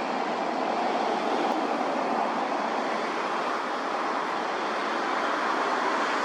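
Road traffic noise: a steady rush of tyres and engines on a street, with no clear siren heard.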